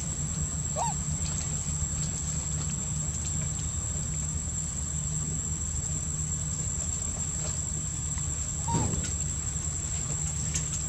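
A steady high-pitched insect drone over a low steady hum, with two short chirping calls, one about a second in and one near the end.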